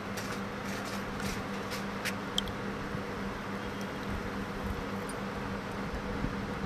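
Steady low room hum with a few faint clicks about two seconds in.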